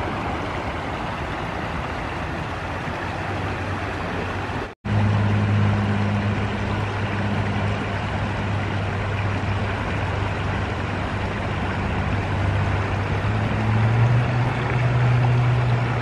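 Small river rapids rushing steadily over rock ledges. The sound cuts out for an instant about five seconds in; after that a steady low hum, like a distant motor, runs under the water and steps up in pitch near the end.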